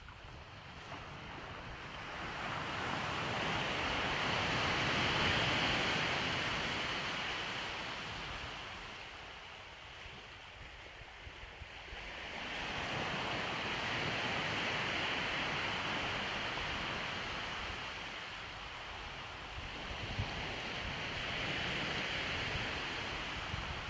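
Sea surf washing onto a beach, swelling and fading three times, with a steady low wind rumble underneath.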